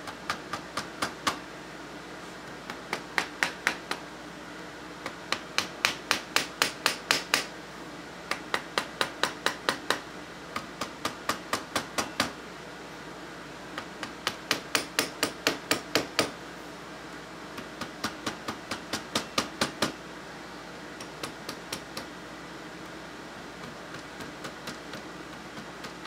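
Rapid light taps of a red mallet against the barrel band and forearm of an Ithaca Model 49-S .22 rifle, knocking the parts loose. The taps come in runs of several, about four or five a second, with short pauses between runs, and grow fainter near the end.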